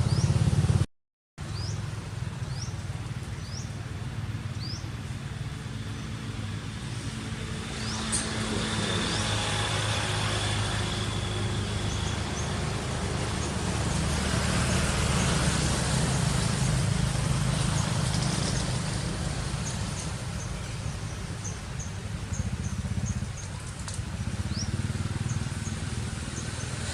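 Outdoor ambience: a steady low rumble of traffic or wind, with short, high, rising chirps repeating now and then, and a brief dropout about a second in.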